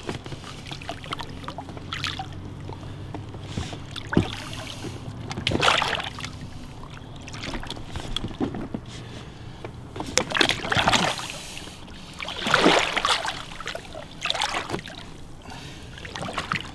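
Wels catfish splashing at the surface among weeds beside an inflatable boat as it is played in on rod and line and grabbed by hand, in repeated bursts of splashing a few seconds apart.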